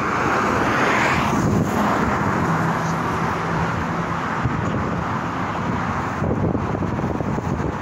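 A vehicle going by, swelling in the first second or so, then a steady low hum, with wind noise on the microphone.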